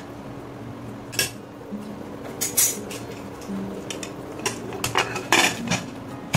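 Metal spoon clinking and scraping against an aluminium pressure cooker as rice and soya chunks are stirred, then a longer scrape and a loud clank near the end as the pressure-cooker lid is set on.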